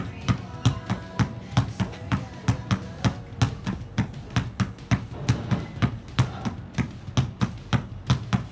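Basketball dribbled hard and fast on a concrete court, a steady run of about three bounces a second, over faint background music.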